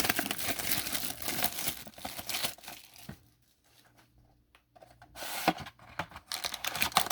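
Packaging on a sealed box of trading cards being torn and crinkled open, in two spells separated by a short quiet pause about halfway through.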